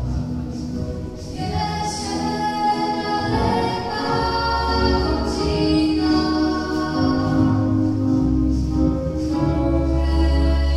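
A children's choir, mostly girls, singing a song in sustained notes, accompanied by an electronic keyboard with low bass notes.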